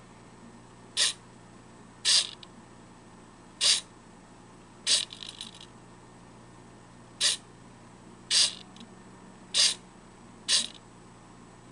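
Two small servo motors swinging the prop's wings up and down at their full, not yet slowed speed: eight short whirring buzzes in four up-and-down pairs, each pair about a second apart. A faint jittery buzz trails the fourth: a servo twitching because the contact switch is not pressed fully.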